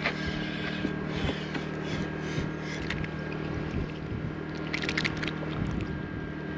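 Scattered clicks, rustles and crackles of a just-hooked silver hake being landed and taken in hand, with a sharper flurry about five seconds in. A steady low hum runs underneath.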